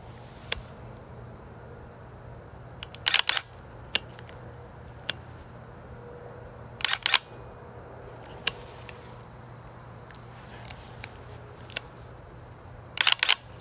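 Rifle shots fired at a close target: sharp, short reports, some single and some in quick strings of two or three, about a dozen in all. A faint steady low hum runs underneath.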